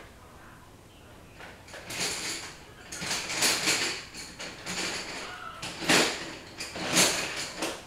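Rummaging through craft supplies for a colored pencil: a run of scraping, sliding and rustling noises that starts about two seconds in and is loudest near the end.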